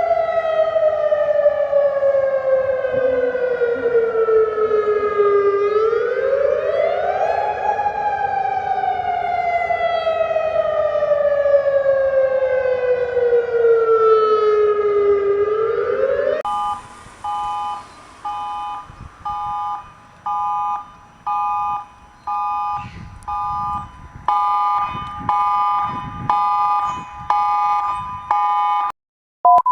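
Emergency alert alarm recordings. First a siren tone falls slowly over several seconds, then jumps quickly back up, twice. About sixteen seconds in it cuts to a chord of beeps repeating about once a second, which pulse faster near the end.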